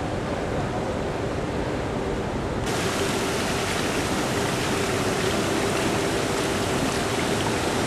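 A steady low rush of outdoor ambience. About a third of the way in it switches abruptly to a louder, hissier, even rush of water running in a thin sheet over glass roof panels.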